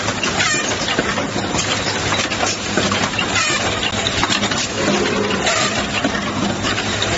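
Automatic LED bulb assembly machine running: a dense mechanical clatter of small clicks and rattles over a steady low hum.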